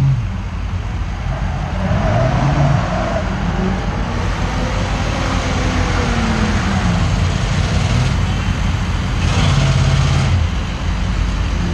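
Truck engine revving during a burnout, its pitch rising and falling over several seconds, with a louder rush of revving and hiss about nine seconds in.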